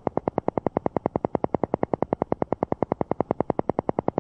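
Alpha-wave pulse track: a rapid, perfectly even pulsing tone beating about ten times a second, the brainwave-entrainment sound meant to lull the listener into an alpha state.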